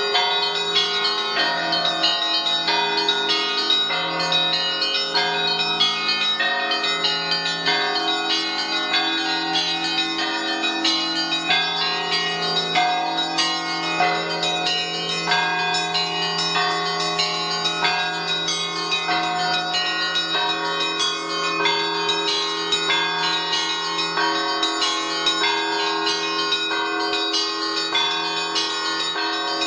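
A set of Orthodox monastery bells of several sizes, hung fixed on a wooden frame and rung by hand with ropes on their clappers. They sound a continuous peal of many quick strikes from the higher bells over the steady hum of a large low bell.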